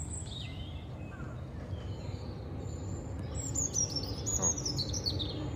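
Birds chirping and singing over a steady low rumble, with one bird's quick run of falling chirps about three and a half seconds in. The rumble grows slightly louder toward the end.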